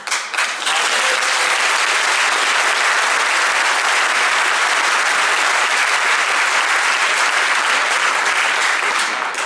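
Audience applauding: dense, steady clapping that starts suddenly and fades out near the end.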